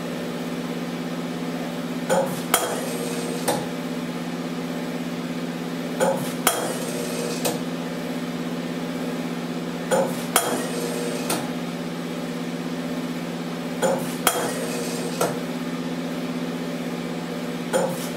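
FOSS Infratec Nova grain analyzer working through a barley sample, taking subsamples for its protein and moisture reading. A steady hum runs underneath, with a group of about three sharp mechanical clicks roughly every four seconds as each subsample is moved through.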